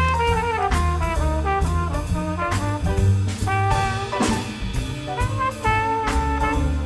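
Jazz big band playing: brass and saxophones carry a moving melodic line over bass notes and drums with repeated cymbal strokes.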